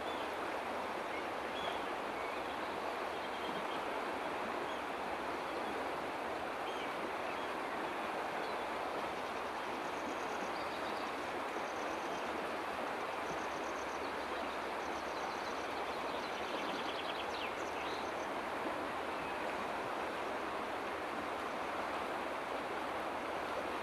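Steady rush of flowing river water, even throughout, with faint high bird chirps and a short trill in the middle.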